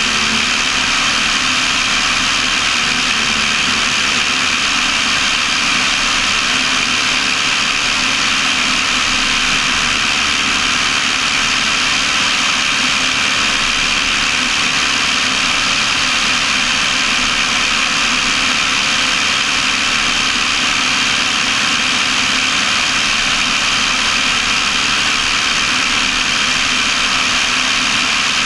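Cessna 172 cabin noise in level flight: the piston engine and propeller drone steadily and loudly, unchanging throughout.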